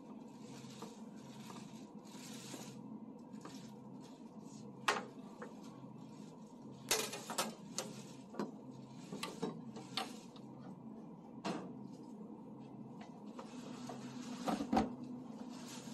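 Scattered knocks and taps of hands handling things at a work table, over a steady low hum. Near the end comes a cluster of hollow plastic knocks as a large clear plastic food container is set down over a cake as a cover.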